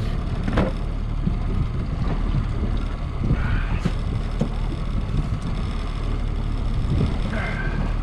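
Small fishing boat's outboard motor running steadily at trolling speed, a low drone, with a couple of light knocks about half a second and four seconds in.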